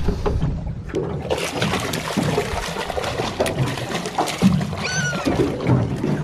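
A hooked fish thrashing and splashing at the water's surface beside the boat as it is reeled in, with a short high squeak about five seconds in.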